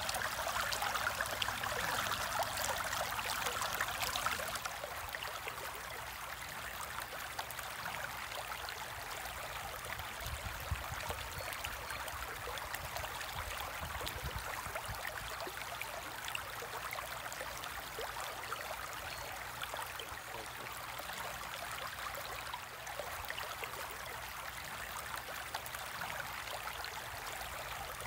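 Aquarium water trickling and bubbling: a steady fizzing noise, a little louder for the first few seconds.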